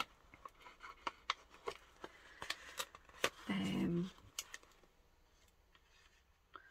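Paper rustling and small clicks as the flaps of a brown paper-bag journal cover are handled and glued down with a squeeze bottle. A brief murmur of voice comes about halfway through, and the handling sounds die down near the end.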